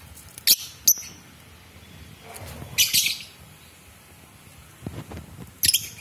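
Lovebirds giving short, high-pitched chirping calls in separate bursts: two quick calls about half a second and a second in, a longer burst around three seconds in, and another near the end.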